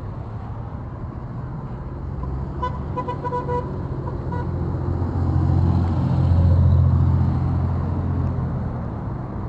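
Car horn tooting in a quick series of short honks about three seconds in, with one more just after, as drivers honk for a roadside protest. Road traffic runs underneath, and a passing vehicle swells to its loudest around six to seven seconds in.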